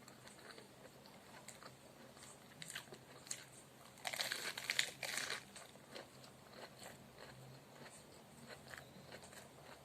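Close-up eating of a lettuce-wrapped bite of meat with soybean paste: soft mouth clicks and chewing, with a burst of loud crunching from the fresh lettuce about four seconds in, lasting about a second and a half.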